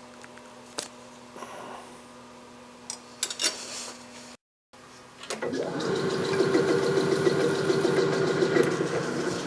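A few light clicks and taps, then about halfway through a metal lathe starts up and runs steadily, its motor and drive giving a constant whirring hum with a fast, even rattle.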